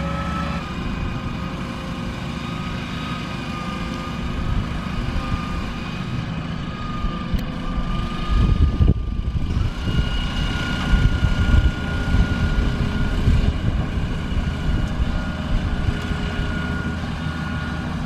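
Grimme Varitron 220 self-propelled potato harvester running as it moves across the field: a steady engine drone with a high, steady whine over it. About halfway through, the low rumble briefly gets louder.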